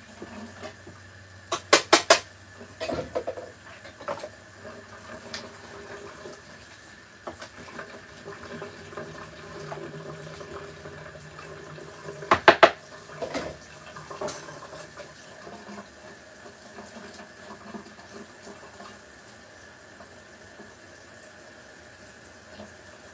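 Washing dishes by hand in a kitchen sink: water running from the tap, with sharp clatters of dishes and utensils in two quick clusters, about two seconds in and again about twelve seconds in.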